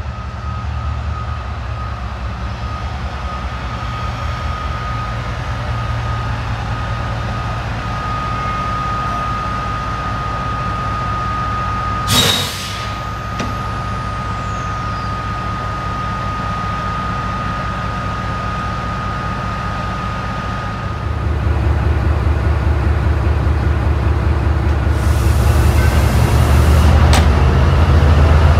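Diesel train engine running at a steady idle with a steady whine, and one sharp air brake hiss about twelve seconds in. About two-thirds of the way through, the whine stops and the engine grows louder.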